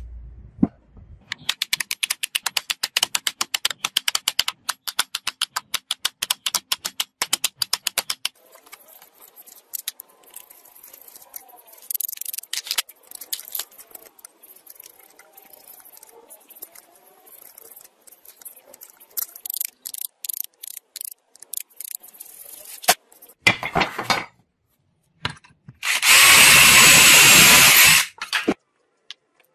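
Woodworking on a board: a run of rapid, even taps for several seconds, then scattered chisel strokes and scraping in wood. Near the end an electric drill bores a hole through the board for about two seconds, the loudest sound, after a brief burst a couple of seconds earlier.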